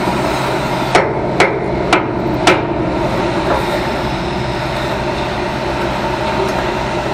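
Four sharp hammer blows on steel about a second apart, struck to knock a part into position and close a fit-up gap, over a steady low hum.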